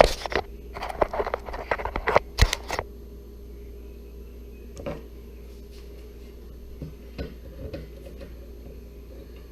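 Sharp clicks and rattles of hands handling a refrigerator ice maker's wiring and plastic parts for about three seconds, loudest near the start and again around two and a half seconds in. After that comes a steady low hum with a few faint clicks.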